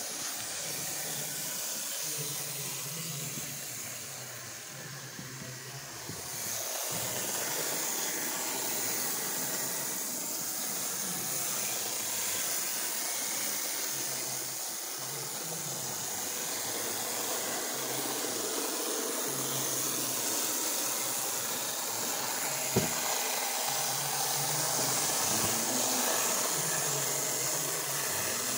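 Steady background hiss with a faint low hum that comes and goes, and a single sharp click about three quarters of the way through.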